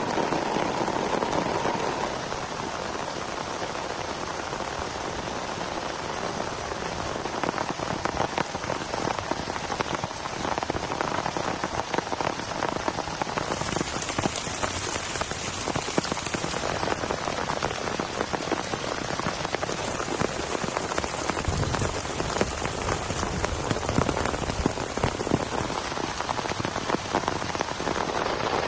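Rain falling steadily: an even hiss thick with the patter of individual drops.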